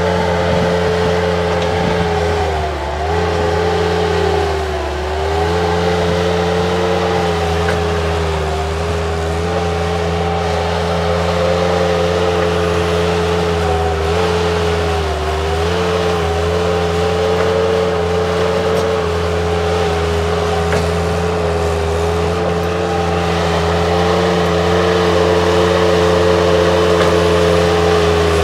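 Bobcat 763 skid-steer loader's diesel engine running steadily at high throttle while digging soil. Its pitch sags briefly a few times, about three seconds in, again at five, and around fifteen seconds, as the engine takes load.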